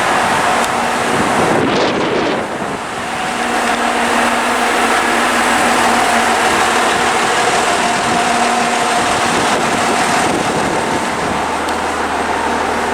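Steady running noise of a moving road or rail vehicle, with a constant hum over a dense rumble and a brief dip about two and a half seconds in.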